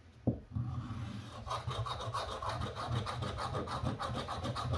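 A coin scratching the coating off a 200X scratch-off lottery ticket. A single tap just after the start, then a fast, continuous run of rasping back-and-forth strokes.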